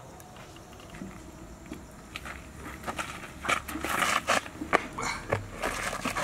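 Knocks, clicks and scraping as a large metal cooking pot is lifted off its stand over a wood fire and set down on the ground, with shuffling steps. The handling starts about three seconds in; before that only a low, quiet background.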